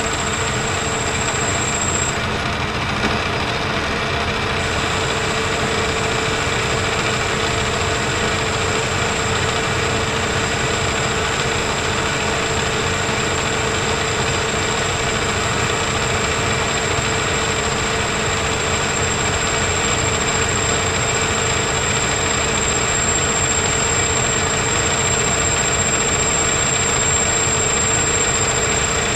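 Metal lathe turning a metal bushing: a steady machine noise with a thin, steady high whine over it.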